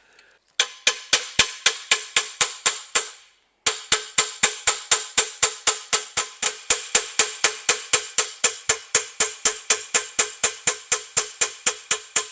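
Rawhide mallet tapping a collapsed brass trombone slide tube fitted over a steel dent rod, in rapid even blows about five a second, each with a short metallic ring. There is a short pause about three seconds in. This is the tube being tapped down onto the rod to round out the crushed section.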